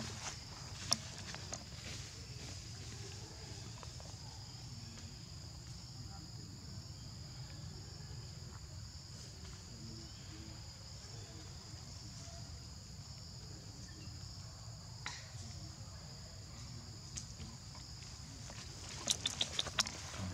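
Steady high-pitched drone of insects in the surrounding vegetation, over a low steady hum. A few sharp clicks and rustles about a second in and again near the end.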